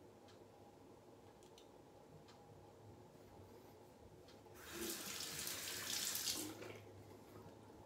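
Bathroom sink tap turned on and running for about two seconds, starting about four and a half seconds in, then shut off.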